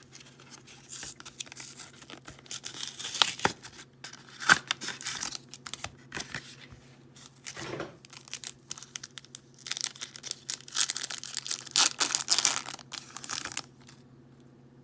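Yu-Gi-Oh booster pack packaging being torn open and crinkled by hand, in bursts of tearing and rustling with a few sharp clicks. The longest burst comes near the end. A faint steady hum runs underneath.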